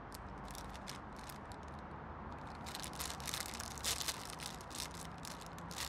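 Plastic crisp packet (a Doritos bag) crinkling as it is handled, then a dense run of loud crackling about three seconds in as the bag is pulled open.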